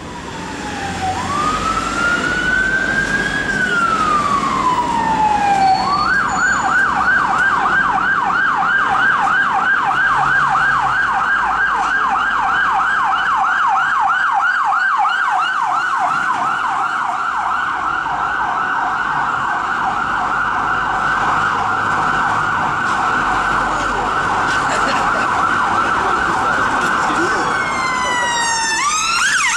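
Electronic siren of a UK police van on an emergency run: one slow wail rising and falling, then switching to a rapid yelp that runs on for over twenty seconds. Near the end a second siren with quicker falling sweeps comes in.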